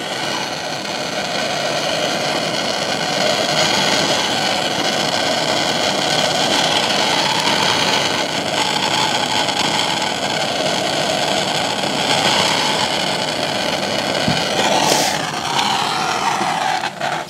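Handheld gas torch flame hissing steadily on a copper pipe joint, heating it for sweat soldering. There is a short click about two seconds before the end.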